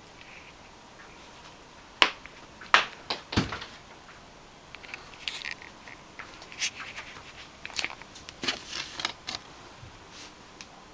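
A pet moving about and playing, making irregular sharp taps and knocks, the loudest two about two and three seconds in, with short bursts of scratchy rustling later on.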